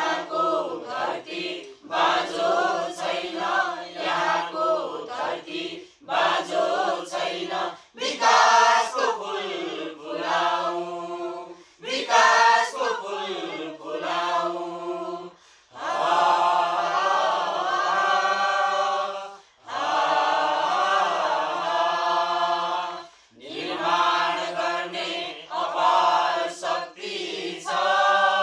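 A mixed group of men and women singing a Nepali song together, voices only, in phrases of a few seconds with brief breaths between them.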